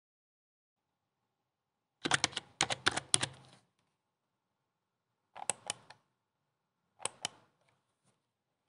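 Sharp clicking sound effects of an animated subscribe-button end screen: a quick run of about ten clicks two seconds in, a few more about five and a half seconds in, and two near seven seconds in.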